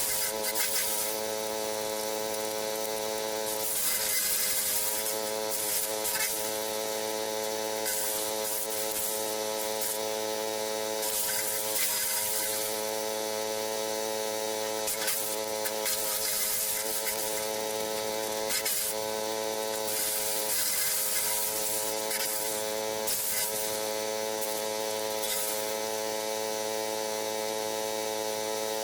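Forest Master FM6DD wood chipper's small 6 hp petrol engine running at a steady speed, with brief irregular rushes of noise every couple of seconds as cuttings are fed in and shredded.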